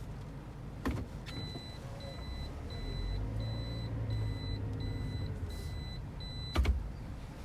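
Toyota Sienta's power sliding door running: a click, then a motor whine under a string of eight evenly spaced warning beeps, ending in a loud thud as the door reaches its stop.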